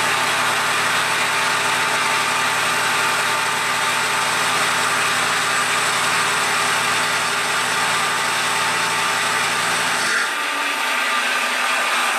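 PM-727M milling machine with an end mill side-cutting a metal bar under flood coolant: a steady, dense machining whir with a few steady tones. About ten seconds in, the cut ends and the low part of the sound drops away, leaving the spindle running and coolant splashing.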